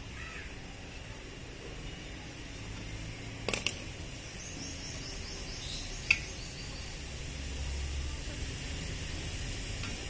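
Pliers working a wire on a clay pot: a few sharp metallic clicks, two close together about three and a half seconds in and one more about two seconds later. A crow caws once right at the beginning.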